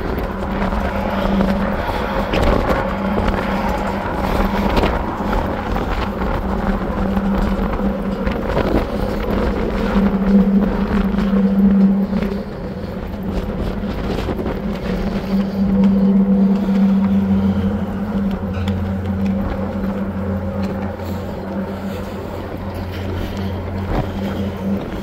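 Steady low hum of the M/V Walla Walla ferry's engines and machinery heard from the open deck while under way, with wind noise on the microphone. A deeper hum joins about two-thirds of the way through.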